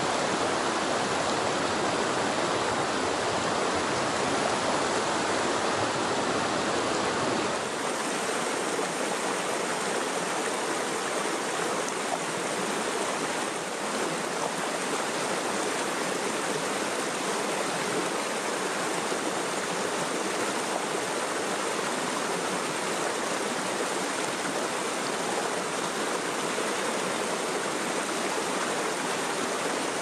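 Mountain stream rushing over boulders: a steady rush of white water with no breaks. About seven seconds in, the deep rumble drops away and the rush turns lighter.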